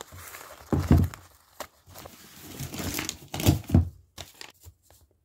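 Parcel wrapping being pulled and torn open by hand, crinkling and tearing, with dull thumps from the box being handled about a second in and again past three seconds in.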